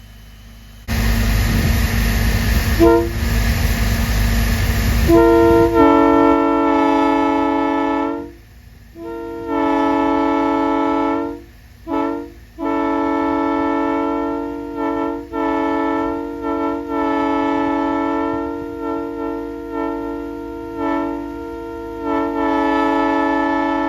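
A loud rush of compressed air for about four seconds, then a multi-chime locomotive air horn sounding a steady chord in a series of long and short blasts.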